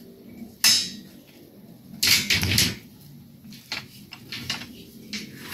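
Steel reinforcing bars being bent by hand with a long-handled rebar bending bar: metal clanks and scrapes as the bender works on the bars, a sharp clank about half a second in and a longer scrape around two seconds in, followed by a few lighter knocks.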